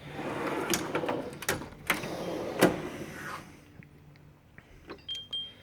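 Drawers of a Matco 6S steel tool box rolling on their ball-bearing slides, shut and open, with several clunks; the loudest is about two and a half seconds in. After that come a few light clicks and a short squeak near the end.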